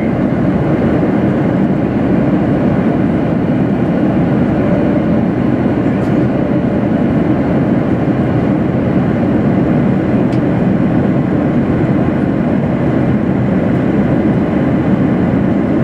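Steady in-flight cabin noise of a Boeing 737-800 heard from a window seat: an even, dense rush of airflow and engine noise.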